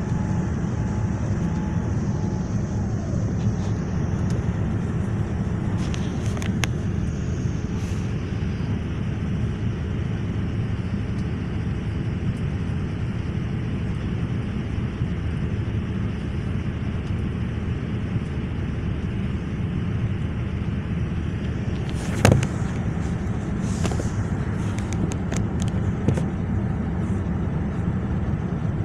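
Steady low rumble of airflow and engine noise inside a Boeing 787's cabin in flight. A sharp knock comes about 22 seconds in, with a few lighter clicks around it.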